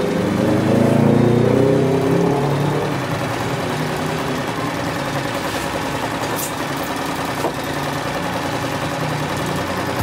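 Portable electric sewing machine running continuously, its needle stitching free-motion embroidery through a darning foot. The motor picks up speed near the start, then runs steadily.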